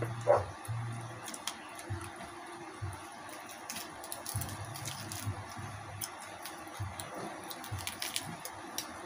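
Bare hands pulling apart a deep-fried pig's head: wet, squishy tearing of the meat and skin, with many small sharp clicks and crackles throughout.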